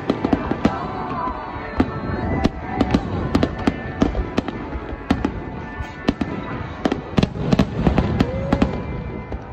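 Aerial fireworks display: a dense, irregular string of sharp pops and crackles from bursting shells over a low rumble of booms.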